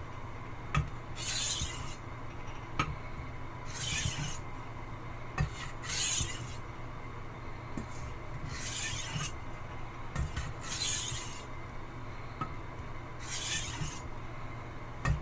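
Wüsthof Classic chef's knife blade drawn across a water stone in slow alternating sharpening strokes: six separate scrapes about two to two and a half seconds apart, most preceded by a light tap as the blade is set down on the stone.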